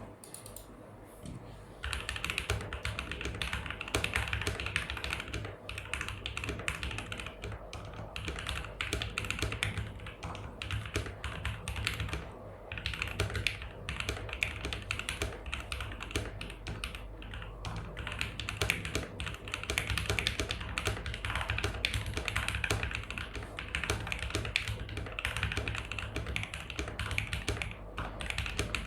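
Steady, fast typing on a KBD67 Lite R2 mechanical keyboard with a PE foam mod and no case foam, fitted with lubed and filmed C³ x TKC Tangerine linear switches and PBT keycaps, recorded through a phone's microphone. The typing starts about two seconds in.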